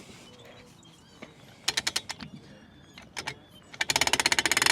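Scattered mechanical clicks about halfway through, then about a second of very rapid ratchet-like clicking near the end.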